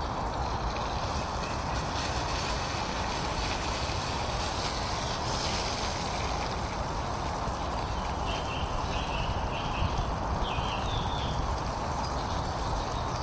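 Camping stove burner hissing steadily under a pan while food in it is stirred with a utensil.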